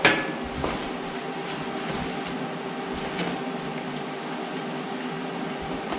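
Hand trigger spray bottle spritzing liquid onto the bare sheet metal of a truck cab's underside: a sharp squirt right at the start and a few fainter ones over the next three seconds, over a steady background hum.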